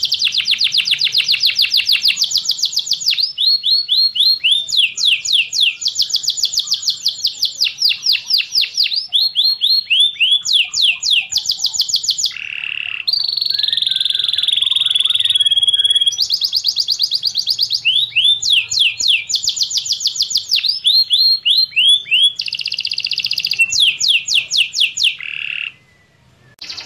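Domestic canary singing: a fast song built of rapid trills, each run of repeated notes lasting a second or two before switching to another kind, with one steadier whistled note partway through. There is a brief break about a second before the end.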